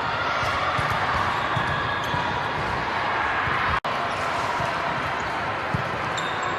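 Balls bouncing on a gym floor amid a steady din of many voices in a large hall. The sound cuts out briefly about four seconds in.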